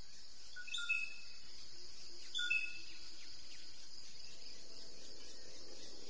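Forest ambience: a steady high insect drone with short bird chirps, one about a second in and another about two and a half seconds in.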